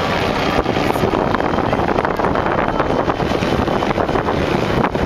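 Steady loud wind noise buffeting the microphone, a rough rushing rumble.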